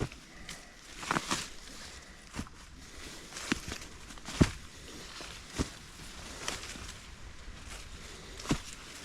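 Footsteps of a hiker climbing a steep dirt mountain trail, irregular steps about once a second, each a short scuff or crunch underfoot.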